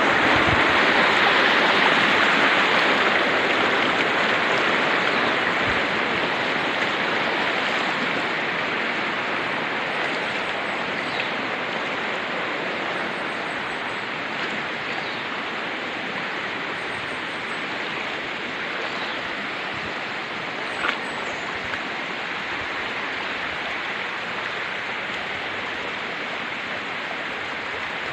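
Steady rushing water, like a stream, slowly growing fainter, with a few faint high chirps in the middle and a single sharp tick in the last third.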